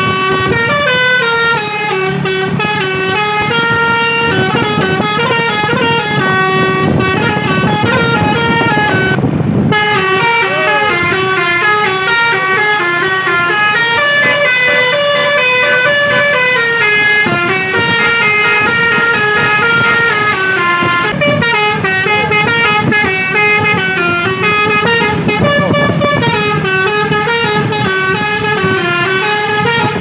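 Telolet multi-tone air horn on a QQ Trans bus playing a long, winding melody of quickly stepping notes without a break, over the low noise of the vehicle.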